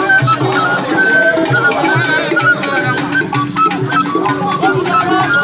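Traditional Igbo masquerade music: a melody of short held notes over drums and rattling percussion, with some voices.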